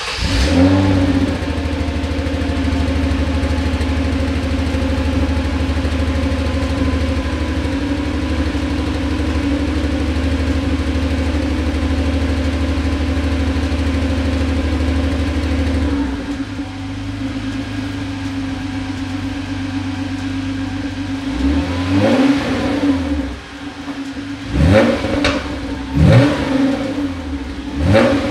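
Hyundai Genesis Coupe 3.8L V6 on its stock exhaust, started up and running at a steady high idle that drops to a lower idle about 16 seconds in. Near the end it is revved several times in quick succession, each rev rising and falling back.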